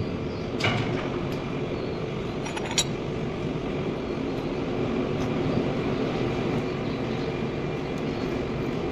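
Steady mechanical rumble of heavy workshop machinery, with two short sharp clicks, about one and three seconds in.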